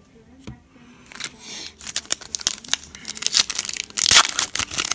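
Foil wrapper of an NBA Hoops trading-card pack being torn open and crinkled by hand: a run of sharp crackles that starts about a second in and grows louder, loudest near the end.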